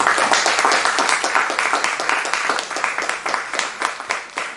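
Audience applauding: dense clapping from many hands that starts suddenly and thins out near the end.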